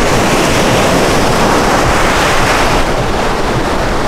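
Small Black Sea waves washing onto a sandy beach in a steady surf, with wind buffeting the microphone in a low rumble.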